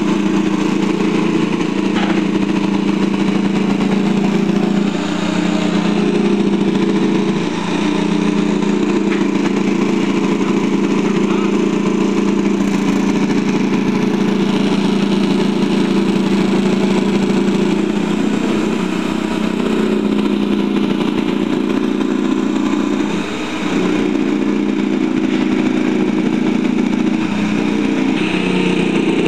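Electric jigsaw running steadily as its blade cuts a circle out of a plywood sheet, the motor sound dipping briefly three times.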